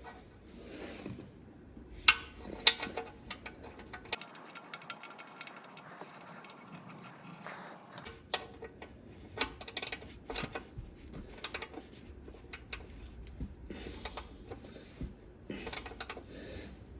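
Socket wrench threading and tightening the oil drain plug back into the oil pan: sharp metal clicks and clinks, with a run of rapid ratchet-like ticks in the middle.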